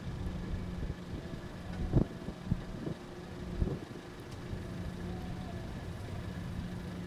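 Diesel locomotives of an approaching CSX freight train running with a steady low drone, broken by a few short low thumps about two to four seconds in.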